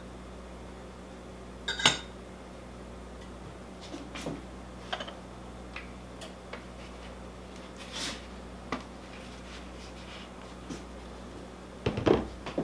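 Metal measuring spoon clinking against a small glass bowl and things being set down on a kitchen counter: one sharp ringing clink about two seconds in, scattered small clicks, and a cluster of knocks near the end, over a low steady hum.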